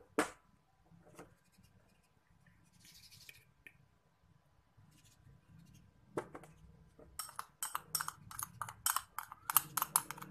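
Metal spoon clicking and scraping against a glitter jar and a glass bowl while glitter is scooped and tipped in: a few scattered clicks, a short scrape, then a quick run of sharp clicks over the last three seconds.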